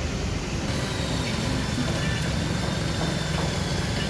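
Steady low rumble of city traffic, with no clear sound from the caulking gun.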